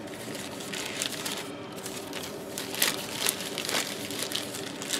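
Plastic packaging bag crinkling as it is opened and handled, with several sharper crackles about three seconds in.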